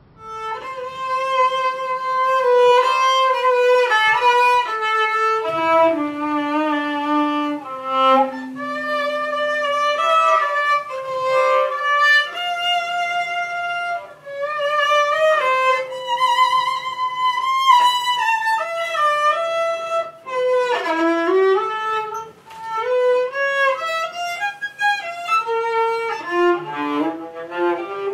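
A violin bowed, playing a melody line one note at a time.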